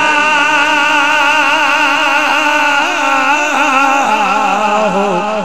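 A male naat reciter singing one long held note into a microphone, with a wavering vibrato. The melody shifts to a new pitch about four seconds in, over a lower steady tone.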